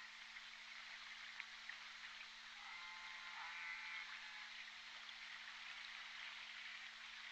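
Southern resident killer whale (J pod orca) call picked up by a hydrophone: one wavering pitched call lasting about a second and a half, a little under halfway through, over steady underwater hiss and a steady low hum, with a faint click early on.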